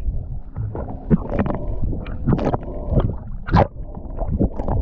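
Water heard with the microphone held under the surface: a muffled, dull rushing and gurgling, broken by irregular louder swishes and bubbling as the camera moves through the water. The strongest swish comes about three and a half seconds in.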